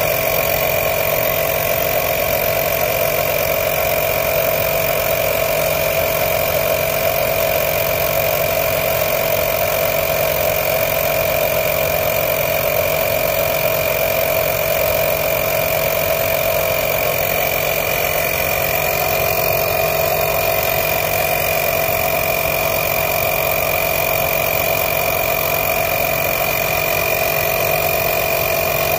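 Greenworks 24V cordless portable air compressor running steadily, its pump inflating a car tyre. The sound is an even, unbroken hum.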